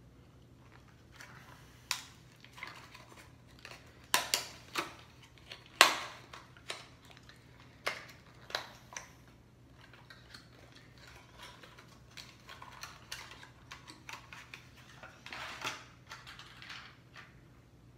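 A hard clear-plastic lure package being opened and handled by hand: a series of sharp plastic clicks and snaps, followed near the end by a stretch of crinkling and crackling plastic.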